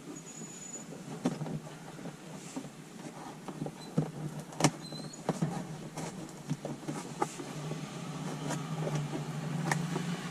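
Scattered clicks, taps and rustles of a dash cam wire and plastic trim being handled as the wire is pushed up into a car's headliner, over a steady low hum that grows a little louder near the end.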